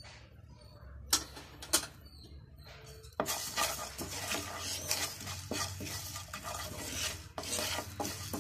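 Wooden spatula stirring and scraping fennel seeds and whole spices (cinnamon, cloves) around a dry nonstick frying pan, dry-roasting them without oil. Two light knocks come about one and two seconds in. Steady scraping strokes begin about three seconds in.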